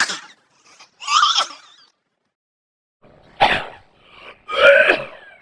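A person sneezing twice with a voiced "ah-choo", each sneeze in two parts about a second apart, the second part louder.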